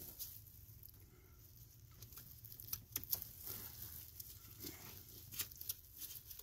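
Faint scattered clicks and scratchy rustles of a gloved hand handling a plastic wiring-harness connector and the NOx sensor's wire, with a low steady hum underneath.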